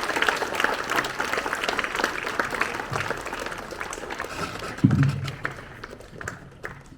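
Crowd applauding, many hands clapping, fading away toward the end. A short low thump comes about five seconds in.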